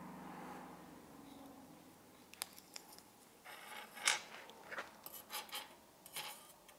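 Metal tweezers clicking and scraping lightly against a small fired cloisonné enamel piece and the metal sheet it rests on: a handful of short clicks and brief scrapes, starting about two seconds in.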